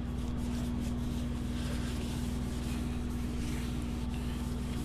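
Steady hum of a running workshop machine, one held tone over a low drone, with a cloth faintly rubbing over an oiled wooden cutting board.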